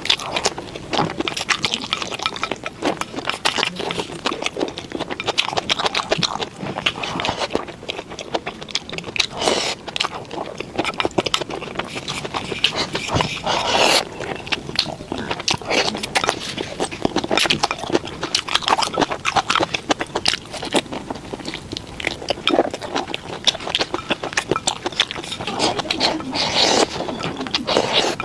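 A person eating close to the microphone: continuous chewing and mouth sounds, made up of many quick clicks and crunches.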